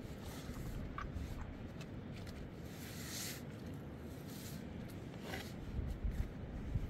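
Cooked noodles being lifted from a steel pot onto a metal tray by hand and with a slotted metal spoon: soft squishing and scraping, with a couple of light clicks of the spoon, over a steady low rumble.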